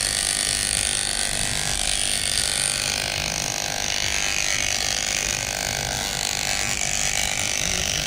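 Corded electric hair clipper running steadily as its blades cut through a dog's thick white fur. Its pitch drops a little about three seconds in.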